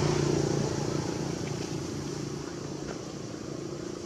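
An engine's steady hum, loudest at the start and easing off after about a second, with a steady hiss behind it.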